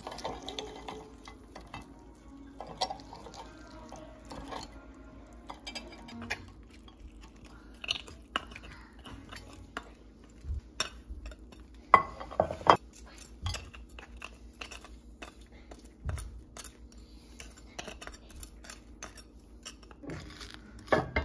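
Metal knife scraping and clinking against roasted beef marrow bones and a ceramic plate as the marrow is scooped out and spread on toast. Scattered short scrapes and clicks, the loudest about twelve seconds in.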